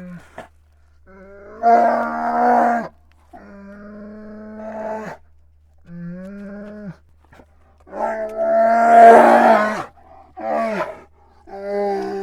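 Grizzly bear calling in a series of about six drawn-out, steady-pitched bellows, each one to two seconds long. The second and the fifth are the loudest and turn harsh and roaring.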